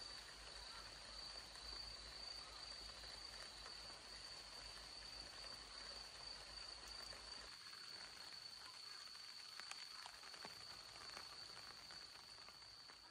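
Faint, steady high-pitched insect trill, one unbroken tone, with a few soft ticks about two-thirds of the way through.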